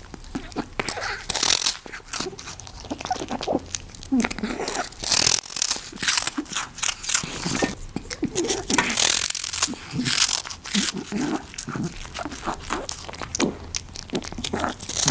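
A pet crunching and chewing a crunchy treat: irregular crisp crunches and bites in quick succession throughout.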